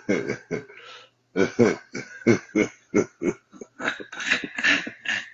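A man laughing hard in a long run of short bursts, a few a second, with a brief pause about a second in.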